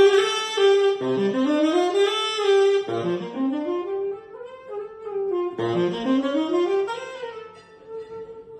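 Unaccompanied tenor saxophone playing jazz: quick runs that sweep up from low notes into the middle register, three times, with a short break about five seconds in. The playing gets softer near the end.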